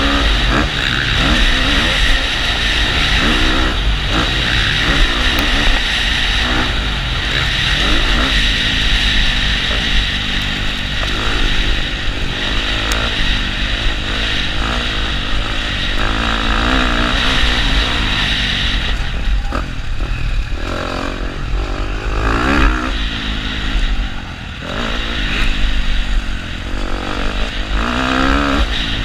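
KTM motocross bike's engine revving up and down through the gears, heard from on the bike, over a steady rush of wind noise. It eases off briefly about three-quarters of the way through, then picks up again.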